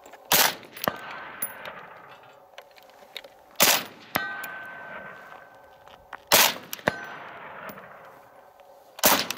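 Four slow, aimed single shots from a suppressed KelTec RDB 5.56 bullpup rifle, about three seconds apart. After each of the first three, a steel target rings about half a second later on being hit.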